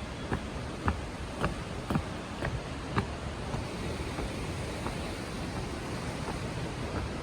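Steady rushing noise of a waterfall. Short sharp clicks come about twice a second for the first three seconds, then only now and then.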